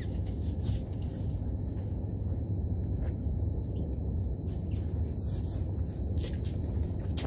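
Steady low rumble of wind buffeting the microphone, with a few faint short high chirps about five seconds in.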